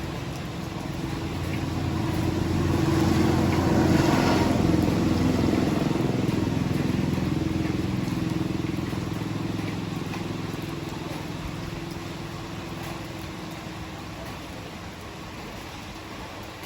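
Heavy rain falling steadily, under a deep rumble that swells to a peak about four seconds in and then slowly dies away.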